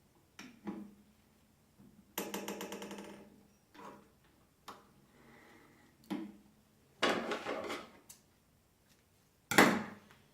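Sunstar cylinder-bed walking-foot industrial sewing machine stitching in a short rapid run of about a second, early on. It is followed by scattered knocks and rustling, with a sharp knock near the end.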